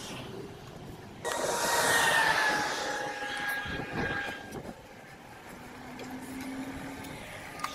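A vehicle passes close by with a rushing noise and a whine that sags slightly in pitch, starting abruptly about a second in and fading after about three seconds. Quieter rolling noise from the bicycle follows.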